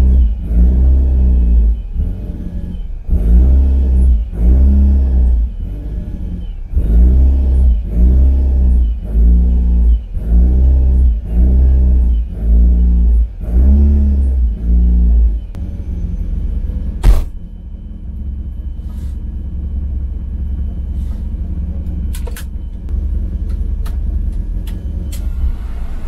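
Toyota AE86 Corolla engine heard inside the cabin while parked, its throttle blipped about once a second so the revs rise and fall again and again. About fifteen seconds in it settles to a steady idle, broken by one sharp click, and near the end it revs up again.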